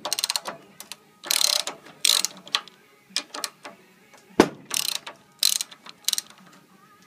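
Ratchet wrench with a 10 mm socket clicking in repeated short bursts of rapid clicks as it is swung back and forth on engine bolts, with one sharp knock about four and a half seconds in.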